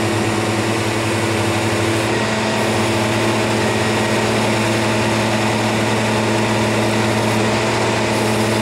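Diesel engine of a 1994 Tigercat 726 feller buncher running at a steady speed.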